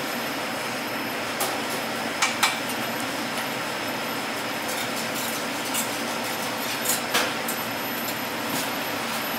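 Steady kitchen background noise, like a ventilation fan running, with a few light clinks, two quick pairs about two and seven seconds in.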